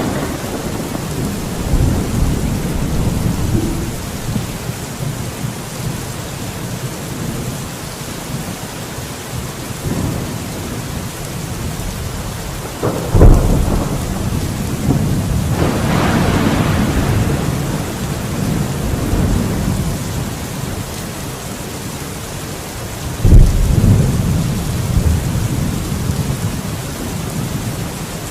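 Steady heavy rain with rolling thunder: a sharp, loud thunderclap about 13 seconds in, a longer rumble swelling soon after, and another loud clap about 23 seconds in.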